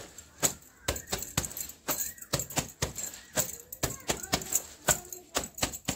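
A wet cloth scrubbed by hand with a bar of soap on a brick floor, in quick even strokes about three or four a second. Wrist bangles jingle with each stroke.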